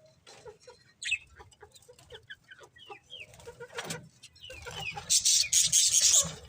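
Budgerigars chirping: scattered short chirps, then from about five seconds in a loud, harsh, rapidly pulsing chatter.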